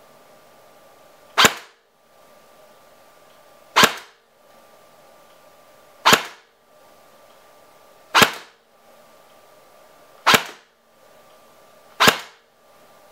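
M4-style airsoft electric gun (AEG) fitted with a Tokyo Marui muzzle velocity reduction adapter on its yellow ring, fired semi-auto through a chronograph: six single sharp cracks about two seconds apart, each dying away quickly.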